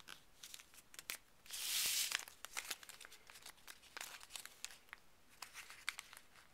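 Sheet of paper being folded and creased by hand into an origami paper cube: a run of quick crinkles and crackles, with a longer, louder rustle about two seconds in.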